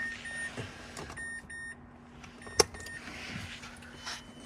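Car's interior warning chime beeping: short high-pitched electronic beeps in quick pairs, about one pair a second, over a low steady hum. A sharp click about two and a half seconds in.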